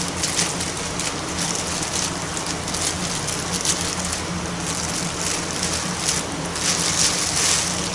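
Plastic bag crinkling and rustling in irregular crackles as a new distributor is worked out of it, the bag wet inside from flood water. Under it runs a steady hiss and low hum.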